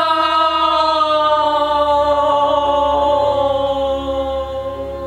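A woman's voice holding one long, drawn-out cry on a single note for about five seconds, sinking slightly in pitch and fading near the end, over a low steady hum.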